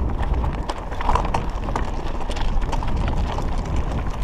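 Raleigh 29er mountain bike riding over railway ballast: tyres crunching on loose stones, with a rapid, irregular run of small knocks and rattles from the bike jolting, over a low rumble.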